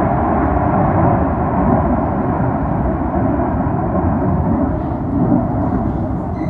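Loud, steady roar of navy jet engines from jets in flight.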